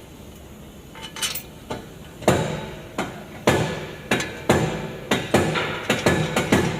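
A hammer striking metal in repeated ringing blows. A few light taps come first, then heavier strikes from about two seconds in that come faster toward the end.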